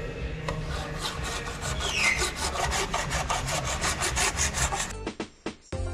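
Sheet-metal bodywork being abraded by hand: a rapid, even train of back-and-forth scraping strokes, several a second, with a brief squeak about two seconds in. It cuts off about five seconds in, and music starts just after.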